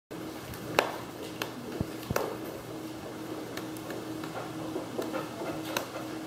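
A child clapping his hands: about six sharp claps at uneven spacing, the loudest about a second in, over faint classroom background noise.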